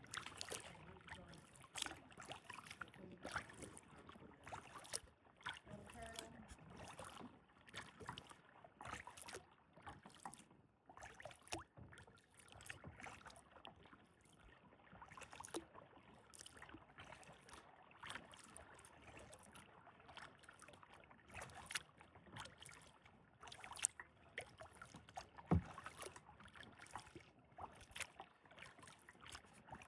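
Faint kayak paddling: water splashing and dripping off the paddle in irregular strokes, with scattered small clicks and a couple of sharper knocks a few seconds before the end.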